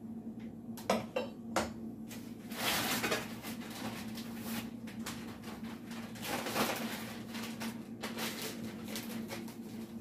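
Cutlery clinking and scraping against a bowl and a plastic container as flour is spooned and mixed into shredded potato: a scattered series of short knocks and one longer scrape about two and a half seconds in, over a steady low hum.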